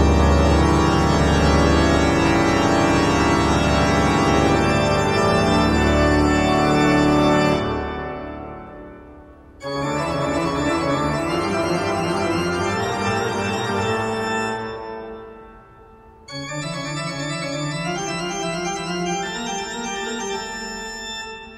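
Background music of sustained keyboard chords in long phrases. Each phrase dies away before the next starts sharply, twice in this stretch.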